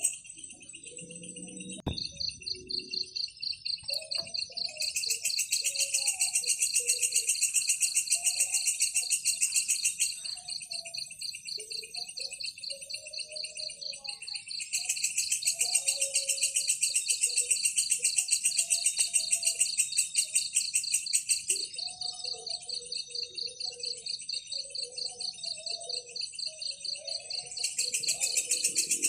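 Insects trilling in a fast, even, high-pitched pulse that swells louder and fades back several times, with scattered soft bird chirps lower down. There is a single sharp tick about two seconds in.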